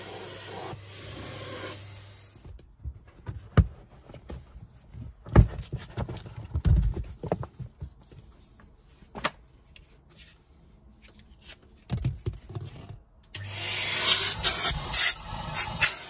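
Numatic Henry cylinder vacuum cleaner running with its hose on the car's leather seat, stopping after about two and a half seconds. Then scattered knocks and rubbing as the car floor mat is handled. About three seconds before the end the vacuum runs again, with grit crackling as it is sucked up the wand in the footwell.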